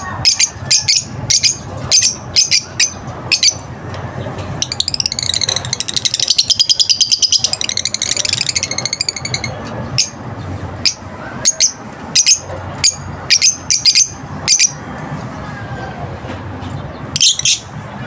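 Caged African lovebirds calling: a string of sharp, high-pitched chirps, with a stretch of rapid, continuous chattering from about five to nine seconds in.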